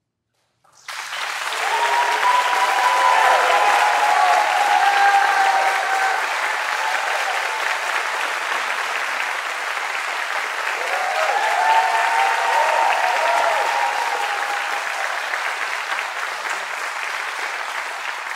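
Audience applauding and cheering after a live percussion-ensemble performance. The clapping starts abruptly just under a second in, and whoops rise over it twice.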